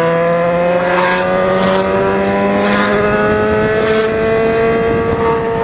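Motorcycle engine pulling steadily under acceleration, its pitch climbing slowly and evenly as the bike gathers speed, with brief whooshes every second or so.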